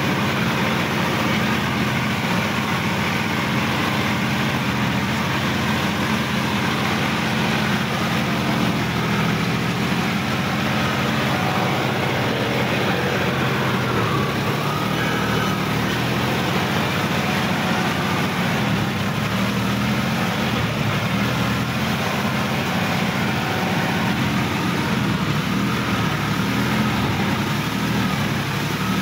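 Sonalika DI-50 RX Supreme tractor's diesel engine running steadily as the tractor drives through a flooded, muddy paddy field.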